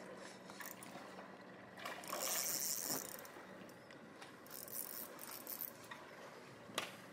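Spinning reel winding in line with a ratcheting, clicking mechanism as a hooked sheepshead is reeled in, in uneven bursts; the loudest stretch comes about two seconds in and lasts about a second, with a fainter one around five seconds.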